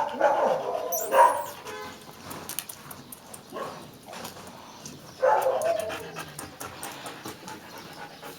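A dog whining and giving a few short yips, in separate cries, the longest about five seconds in.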